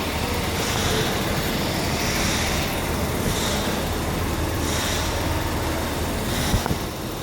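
Nissan engine running steadily; the engine has a misfire and low power. One short sharp click sounds near the end.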